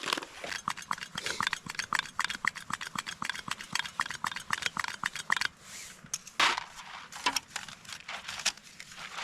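Camp cooking noises: a rapid run of light clicks and rattles for about five seconds, then a brief hiss and a few scattered knocks.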